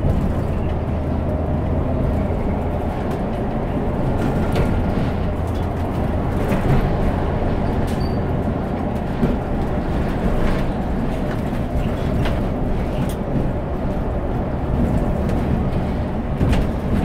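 Mercedes-Benz Citaro G articulated bus's 300 hp diesel engine, with its Voith four-speed automatic, running under heavy throttle in a kickdown, heard from the driver's seat as a steady low drone. Occasional clicks and rattles from the cabin.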